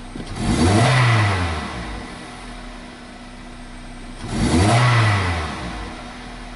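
2002 Toyota Corolla's four-cylinder engine revved twice from idle, heard from inside the cabin. Each rev rises and falls over about a second and a half, the second about four seconds after the first. The throttle is blipped to watch the oxygen sensors respond during a catalytic converter efficiency check.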